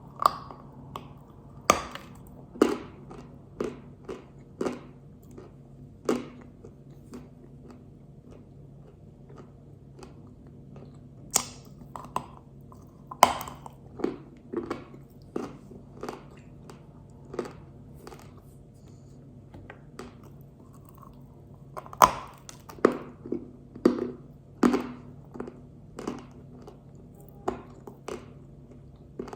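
Pink Uzbek edible clay being bitten and chewed: irregular sharp crunches, with a couple of pauses of a few seconds.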